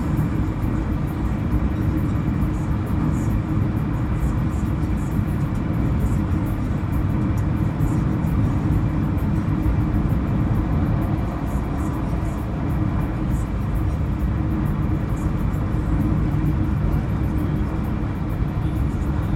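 Steady road and tyre noise of a car cruising at highway speed, a constant low rumble with no change in pace.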